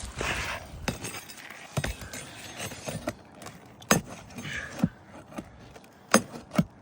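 Metal pry tool scraping under roof shingles and clinking against the roofing nails as they are worked out, with sharp clicks about once a second.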